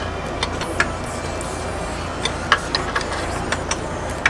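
Metal spanner clicking against a clutch master cylinder mounting bolt in short, irregular ticks as it is worked in small moves in a tight space, over a steady low hum.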